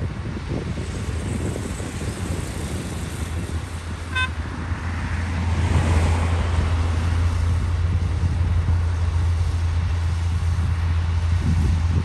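Komatsu D53P bulldozer's diesel engine working under load as the dozer pushes soil, a steady low drone that grows louder about five seconds in. A brief high beep sounds just after four seconds.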